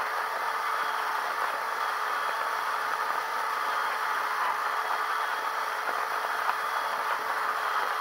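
USB rechargeable electric coffee grinder running steadily, grinding coffee beans: a constant motor hum with the beans rattling through the grinder.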